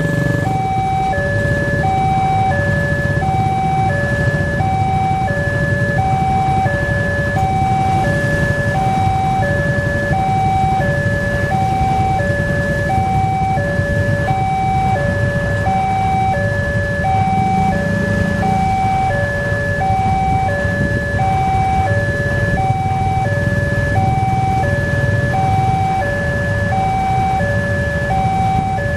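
Railway level-crossing warning alarm sounding its electronic two-tone chime, a high note and a lower note alternating steadily, about one pair every second and a bit, as the crossing gates are closed for an approaching train. Underneath is a low rumble of idling engines from the waiting vehicles.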